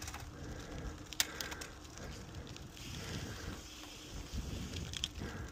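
Bicycle tyres rolling over rough chip-seal asphalt, a steady low crackling rumble with a few sharp clicks from the bike, one about a second in.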